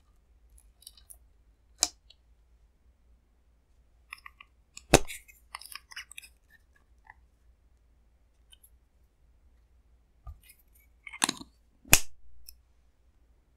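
Clear slime being worked by hand, with sticky clicks and crackling pops; the sharpest pops come about five seconds in and twice near the end.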